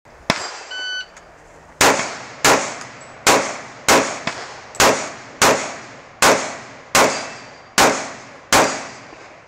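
A shot-timer beep, then ten shots from a Glock 30 subcompact .45 ACP pistol fired in an even, steady string, a little under a second apart.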